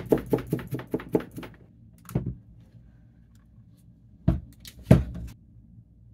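Soldering iron tip jabbed quickly into a brass-wool tip cleaner, a run of scratchy metallic clicks lasting about a second and a half. Then three dull thumps, the last the loudest, as the opened lithium battery pack is picked up, turned over and set down on the cutting mat.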